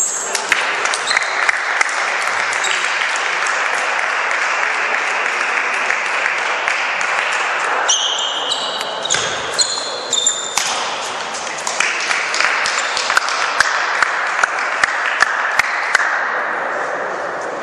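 Table tennis ball clicking off bats and the table in irregular strokes over a steady wash of crowd noise in a large sports hall. A few brief high tones come through about halfway.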